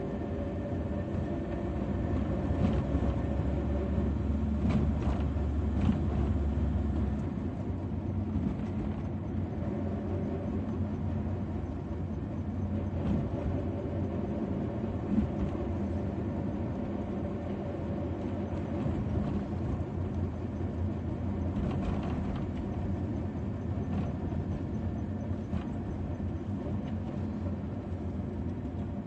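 Road noise inside a moving car's cabin: a steady rumble of engine and tyres, deeper and heavier for about the first seven seconds.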